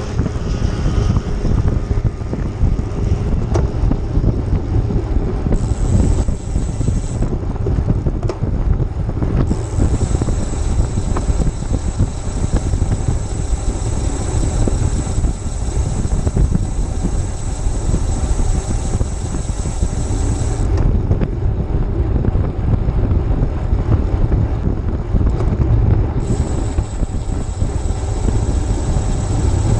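Wind rushing over the microphone of a GoPro on a moving road bicycle, a loud steady low rumble. A thin high hiss comes and goes three times over it.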